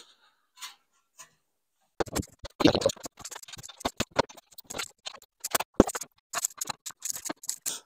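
Irregular clicks, knocks and small clatters of metal roof-rack parts and hardware being handled, starting about two seconds in after a near-silent moment.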